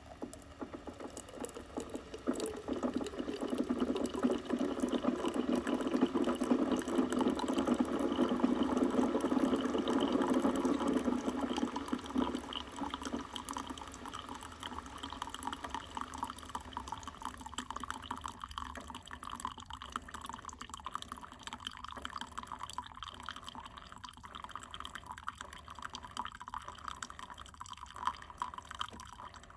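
Brewed coffee pouring in a thin stream from a drip coffee maker into a stainless steel mug, a steady splashing fill. About twelve seconds in it grows quieter and turns into a thinner trickle with drips as the stream tapers off.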